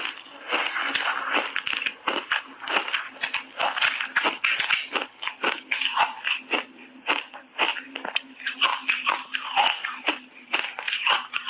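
Close-up crunching of frozen blueberry shaved ice being bitten and chewed in big bites: a dense, irregular run of sharp crunches, several a second.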